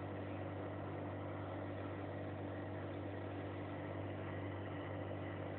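Steady low hum of an engine or motor running at constant speed, its pitch unchanging.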